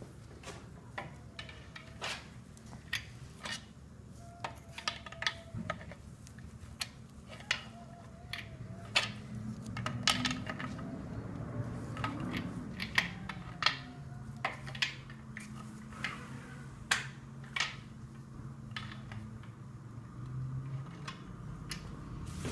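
Irregular metallic clicks and clinks of hand tools and a steel bar against the bare 5.7L HEMI block and crankshaft as the crank is levered on its main bearings, over a low hum.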